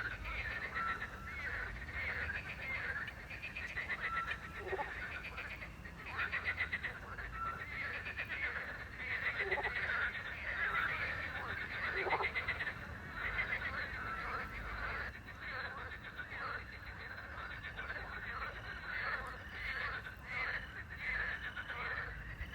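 Night chorus of many frogs croaking continuously in rapid pulsed calls. A short clear note repeats every few seconds, typical of a small owl calling, and a few brief falling whistles cut through in the first half.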